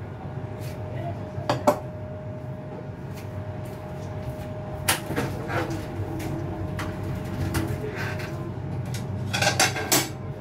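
Kitchen clatter: dishes, pots and utensils knocking and clinking now and then, with a small cluster of knocks near the end, over a steady hum.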